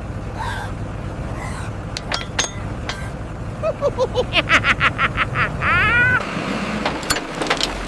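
Tractor engine running with a steady low hum that cuts out about six seconds in. Over it come a few sharp clicks and, midway, a quick run of high, squeaky chirps rising in pitch, the loudest part.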